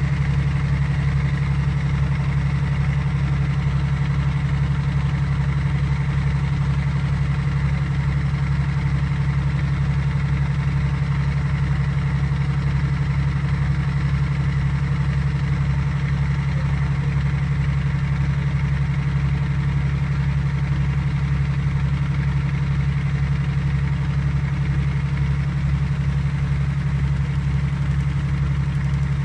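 A boat's engine running steadily, heard on board as a constant, unchanging low drone.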